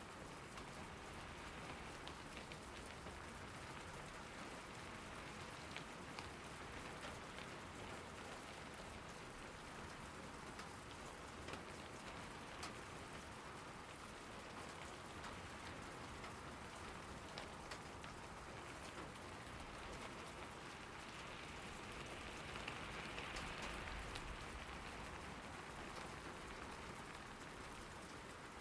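Steady rain falling on a surface, with scattered individual drop ticks, swelling slightly a little before the end.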